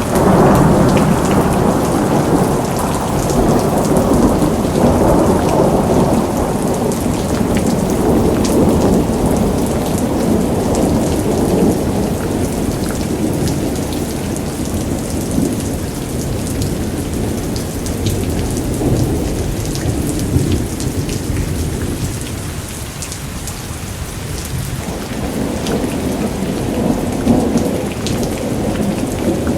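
Rain falling steadily, with thunder rolling in a continuous low rumble. The rumble is heaviest through the first dozen seconds, eases a little past the middle and swells again near the end, while fine drop ticks run throughout.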